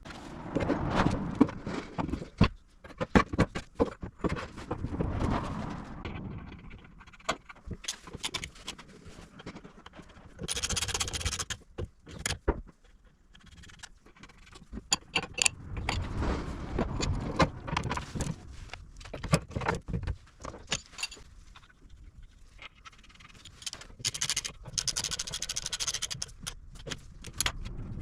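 Metal tools and parts clinking, knocking and scraping in irregular bursts, with sharp clicks scattered throughout and longer scraping or rustling stretches in between.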